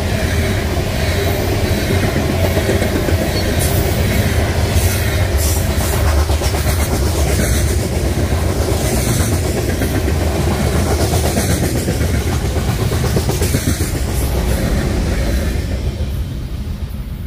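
Loaded BNSF covered hopper cars of a grain train rolling past close by: a steady low rumble with wheels clicking over the rail joints. The sound drops off near the end as the last car passes.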